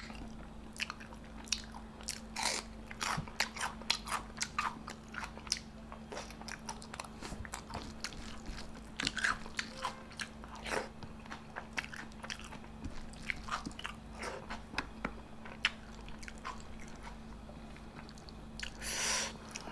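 Close-miked eating: irregular crunchy bites and chewing of a meal of fish, fried brinjal and raw onion.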